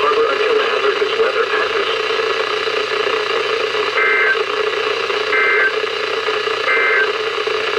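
Weather radio receiver hissing with static, then three short warbling digital data bursts about 1.4 s apart from about four seconds in: the SAME end-of-message code that closes an Emergency Alert System warning.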